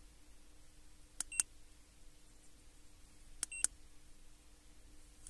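Keypad of an Ancel FX2000 OBD2 scan tool pressed twice, about two seconds apart, each press a click followed by a short electronic beep as the menu advances. A faint steady hum sits underneath.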